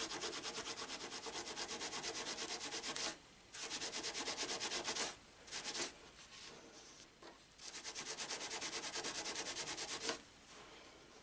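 Very fine steel wool scrubbed rapidly back and forth over a metal coin by hand, several strokes a second, polishing it back to its original shine. The rubbing comes in three spells with short pauses between.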